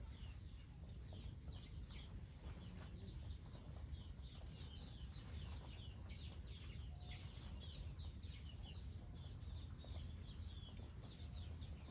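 Birds chirping: a faint, steady stream of short, high chirps over a low background rumble.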